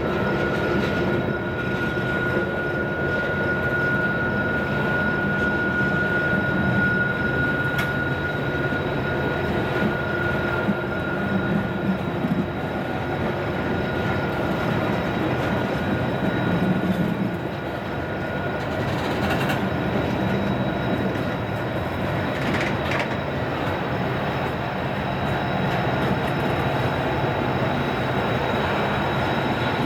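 Heavy loaded coal train moving slowly uphill: a steady rumble of rolling cars with a thin, steady wheel squeal, under the low drone of diesel helper locomotives working hard in Run 8.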